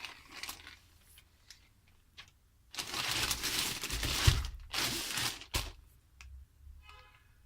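Parcel packaging crinkling and rustling as it is handled. There is a short burst at the start and a longer, louder stretch from about three to five and a half seconds in, ending with a sharp click.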